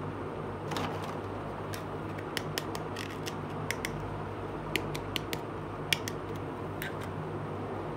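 Light, sharp plastic clicks and taps as a small hard-plastic toy kitchen counter piece is handled, turned over and set down, about a dozen scattered clicks over a steady low hum.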